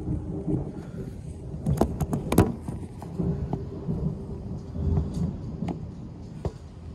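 A big thunderclap, rumbling low throughout, with a cluster of sharp cracks about two seconds in. Rain falls in the background.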